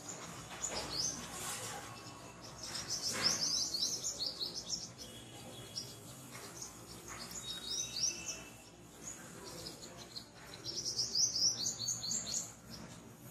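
Small birds chirping in several bursts of quick, high, falling notes, with short pauses between the bursts.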